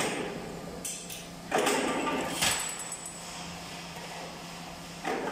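Workshop noise of machine parts being handled and fitted during assembly: a few short knocks and rattles, with a sharp click about two and a half seconds in, over a steady low hum.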